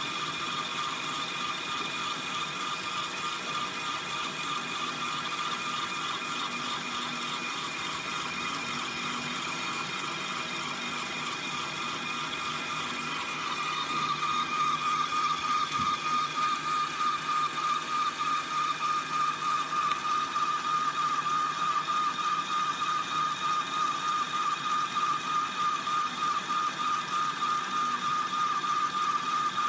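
Small electric gear motor and belt-driven line shaft of a G scale model sawmill running with a steady mechanical whine. About halfway through it grows louder, with a fast, regular pulsing.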